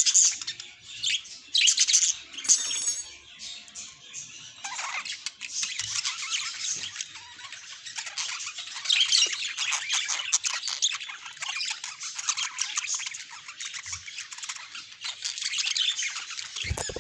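Budgerigars chattering and warbling: a dense, continuous run of quick chirps and squawks, loudest in the first couple of seconds.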